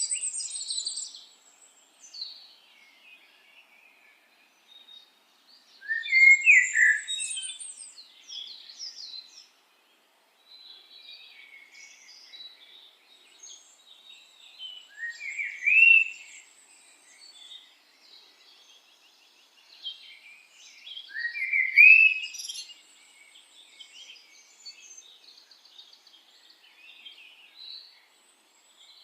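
Birds chirping and singing, with a loud rising call repeated three times, several seconds apart.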